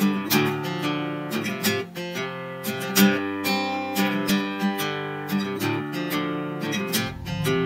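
Intro music: a strummed, plucked guitar tune with a steady rhythm.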